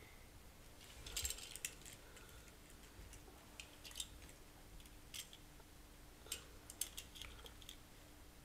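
Faint scattered clicks and light rattles of small toy cars being handled and set down on a couch cushion, densest about a second in.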